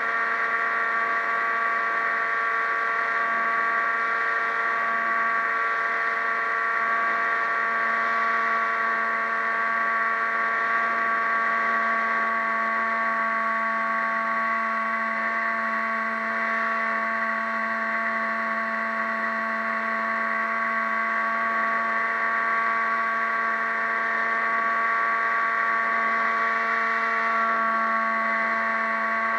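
Radio-controlled boat's motor running at a steady speed, a constant whine that holds one pitch.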